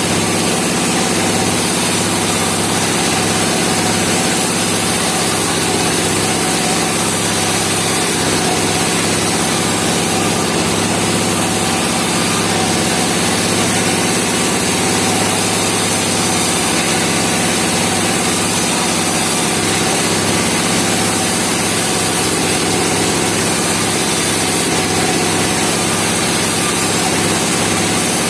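Sawmill engine running steadily, loud and unchanging throughout.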